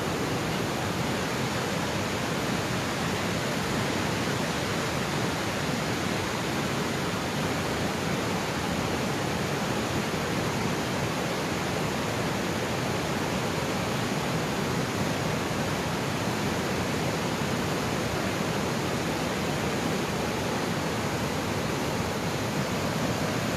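Floodwater rushing steadily: a continuous, even roar of water with no breaks.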